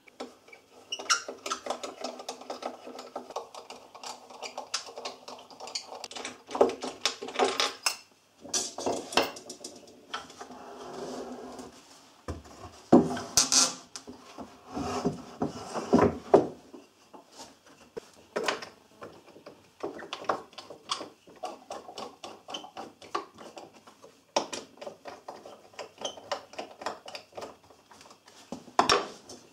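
Irregular wooden knocks, clatter and rubbing as a wooden shooting-board jig is shifted about on a workbench and its auxiliary fence is set in place.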